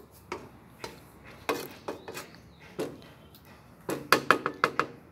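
Wooden spatula knocking and scraping in a frying pan while stirring chicken and vegetables, single knocks every half second or so. About four seconds in comes a quick run of about six sharper taps against the pan, each with a short metallic ring.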